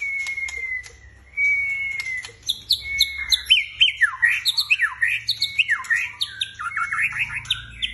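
White-rumped shama (murai) singing. It opens with a few long clear whistles, then breaks into a fast run of repeated downward-sweeping phrases with sharp clicks between them.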